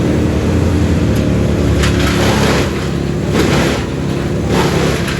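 Wood chipper running, its engine droning steadily, with several rougher, noisier spells in the second half as branches are fed in and chipped into wood chips.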